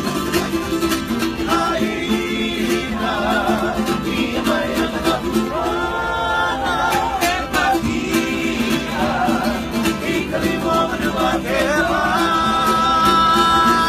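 Hawaiian entertainers singing a song together, backed by a strummed string instrument. The voices waver and hold a long note near the end.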